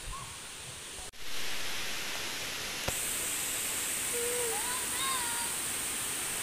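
Steady rushing noise of falling water, jumping louder about a second in. A high steady hiss joins about three seconds in, and a few short whistled calls come around four to five seconds in.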